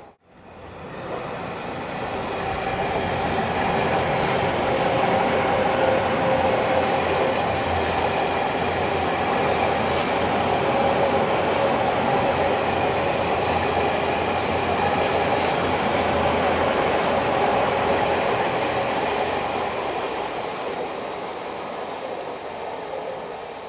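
E351-series electric train running on the rails, the sound building over the first few seconds, holding steady, then fading away near the end.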